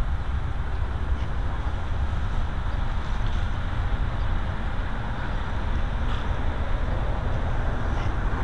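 Steady low rumble and hiss of outdoor background noise, with a few faint clicks scattered through it.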